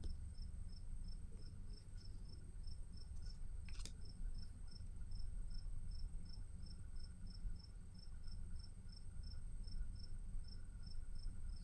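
Cricket chirping steadily, short high chirps at about three to four a second, over a faint steady high whine; one soft click about four seconds in.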